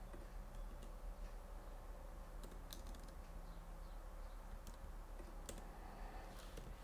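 A handful of separate keystrokes on a computer keyboard over a faint steady hum.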